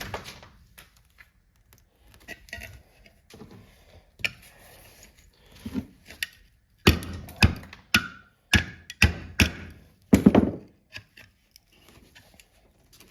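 Irregular knocks and taps of tools on a well pump's metal casing as it is pried apart, with a run of harder, closely spaced strikes in the second half.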